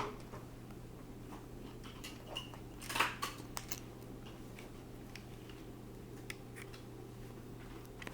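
Packaging of a small lens kit being handled: scattered light clicks and rustles, the loudest a short crinkle about three seconds in, over a steady low hum.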